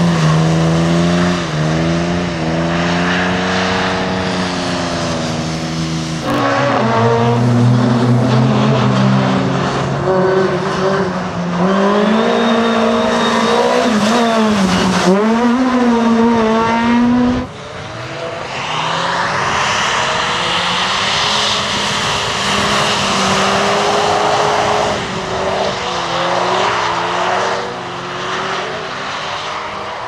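Rally car engines revving hard and varying with the throttle, several cars one after another, with abrupt cuts about six and seventeen seconds in. The last third has a hiss of tyres on wet tarmac beneath a lower engine note.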